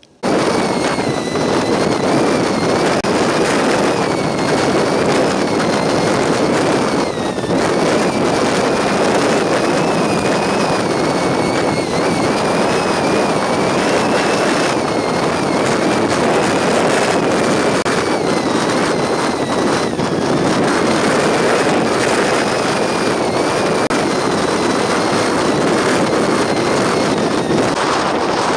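Gale-force storm wind roaring steadily over the microphone, with a high whistle that wavers in pitch throughout. It starts suddenly at full strength.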